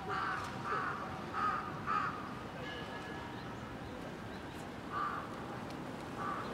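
A crow cawing: four harsh caws in quick succession, then two more, spaced apart, later on, over steady background noise.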